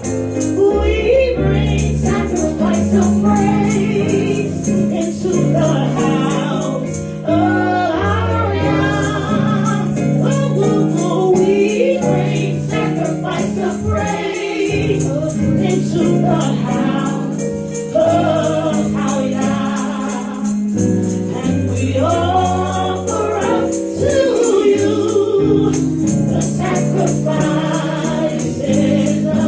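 Gospel worship music: a group of voices singing over a band with bass, keyboard chords and a steady beat on hi-hat or tambourine.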